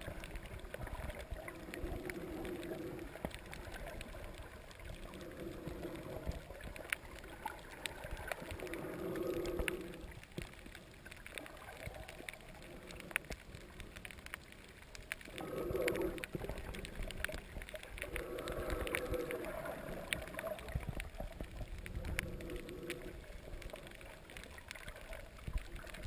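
Underwater sound picked up by a submerged camera over a coral reef: a steady crackle of many small clicks, with a muffled swell of sound every three to four seconds in the rhythm of a snorkeler's breathing.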